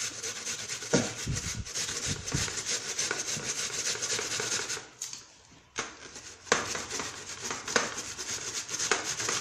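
A red onion being grated by hand on a grater: a run of quick scraping strokes, with a short pause about five seconds in.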